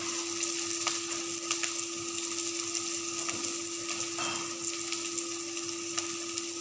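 Garlic and onions frying in oil in a pan: a steady sizzle with a few light clicks, over a steady low hum.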